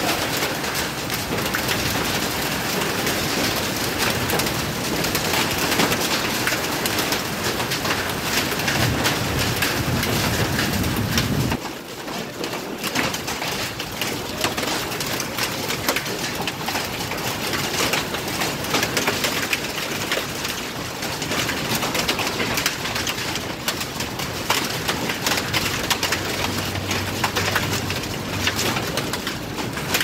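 Rain mixed with small hail pattering densely on an outdoor tiled floor, a steady hiss of countless fine impacts. The level drops suddenly about twelve seconds in, and a low-pitched bird call sounds in the background at times.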